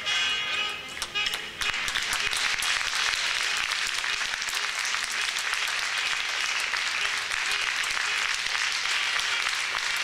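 Theatre audience applauding, a dense steady clapping that thins briefly about a second in and then fills back in, with music playing faintly underneath.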